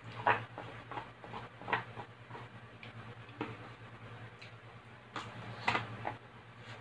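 Wooden chopsticks clicking and scraping against a plastic food tray as spaghetti is picked up and stirred: short, irregular clicks over a steady low hum.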